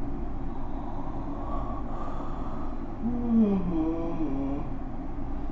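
A steady low background hum, with a faint distant voice about three seconds in.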